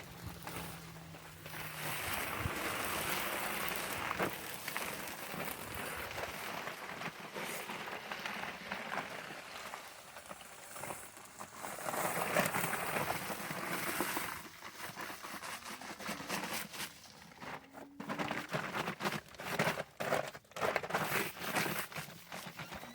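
Dry bagged concrete mix poured from a bag into a form: a steady hiss of pouring about two seconds in and again about twelve seconds in, then bag crinkling and scattered scraping clicks near the end.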